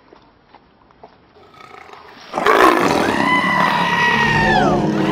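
Loud yelling breaks out about two and a half seconds in, after a faint stretch, with one long high cry held for more than a second that falls away near the end.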